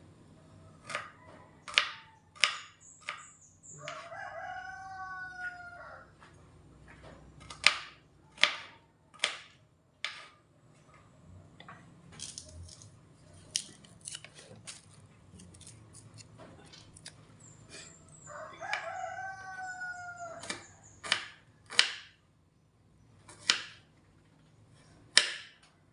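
A rooster crows twice, once about four seconds in and again near nineteen seconds, over a run of loud, sharp knocks at irregular intervals, the pounding heard in the background.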